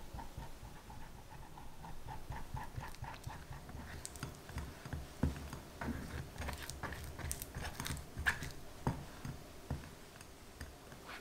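Silicone spatula pressing and scraping thick lemon curd through a fine-mesh metal sieve, wet squishing strokes in a soft rhythm. From about four seconds in the scraping gets busier, with a few sharp clicks of the sieve and spatula.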